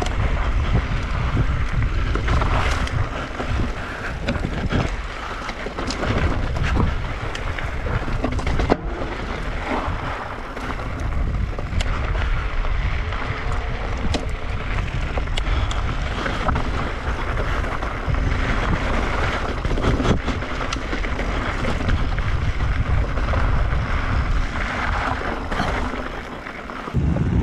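Wind buffeting the helmet-camera microphone as an e-mountain bike descends a dirt trail, with tyre noise on the dirt and frequent clicks and knocks from the bike rattling over rocks and roots.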